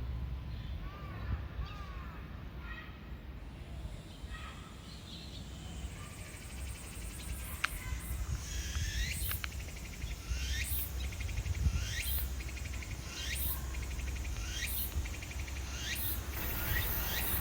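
A tsukutsuku-boshi cicada (Meimuna opalifera) starts singing about halfway in, repeating its rhythmic phrase roughly once every second and a bit over a high buzz. A low steady rumble runs underneath, and there are a few faint bird chirps in the first few seconds.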